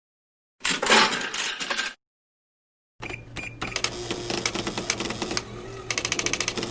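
Stock cash register sound effects played back one after another: a short burst of about a second, a gap of silence, then a longer mechanical clatter of clicks and rattles that ends in a fast run of even clicks.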